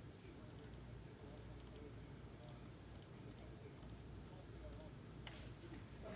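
Near silence with faint, scattered clicks from computer use, one a little louder near the end.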